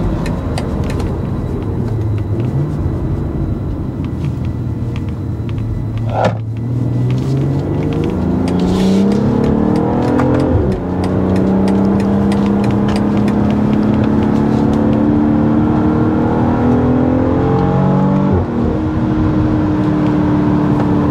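BMW X3 M40i's 3.0-litre twin-scroll turbocharged straight-six under acceleration, heard from inside the cabin. The engine note climbs, drops at an upshift about ten seconds in, climbs again more slowly and drops at a second upshift near eighteen seconds, then runs steadily. A brief sharp sound comes about six seconds in.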